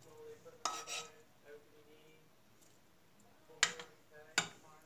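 A metal spoon stirring sauce in a stainless steel pot, clinking sharply against the pot's side a few times, the two loudest clinks near the end.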